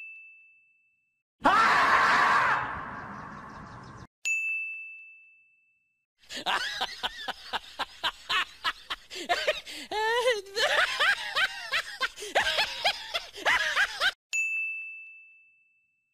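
A bright chime dings and fades, then a loud shriek about a second and a half in that lasts a couple of seconds and tails off. A second ding follows, then about eight seconds of rapid squeals, chirps and clicks, and a last ding near the end.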